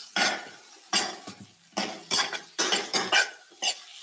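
Metal spoon scraping and clinking against a stainless steel electric skillet as sliced bell peppers and onions are stirred, about two strokes a second.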